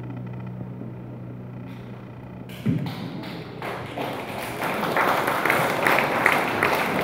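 A low held note dies away. Then a thump, and audience applause with cheering starts and builds.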